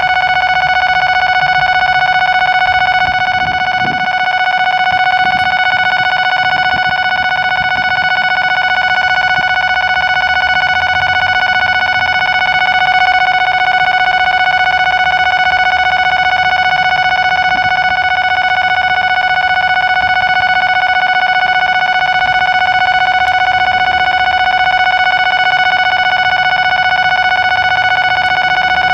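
Railway level-crossing alarm sounding continuously as a steady, high electronic ringing tone, over the faint low rumble of a DD51 diesel locomotive hauling a train of tank cars.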